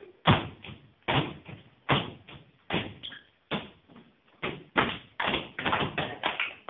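Children's feet stamping and landing on a hard floor as they dance, a rough beat of thuds about one every 0.8 s that comes faster after the middle.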